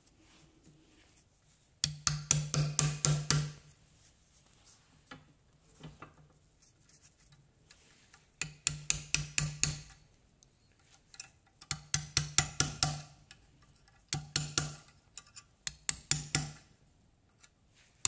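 Slide hammer knocking in quick runs of metal-on-metal strikes, about five a second, in five separate bursts, as it pulls the remains of a worn rear hub bearing out of a Suzuki LT50 quad's hub.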